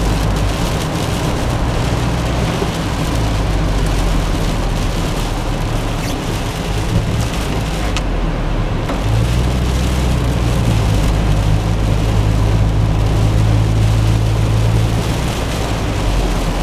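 Car cabin noise while driving on a rain-soaked highway: a steady low engine and road drone under a constant hiss of tyres on wet pavement and rain on the windshield.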